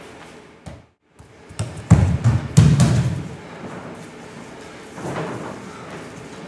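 A run of heavy, low thuds, loudest about two to three seconds in, after a brief drop to silence.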